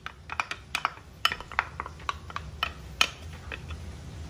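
Wooden spatula clicking and scraping against a bowl and a small saucepan as raw egg yolks are scraped into the pan: a quick run of light, irregular taps and knocks.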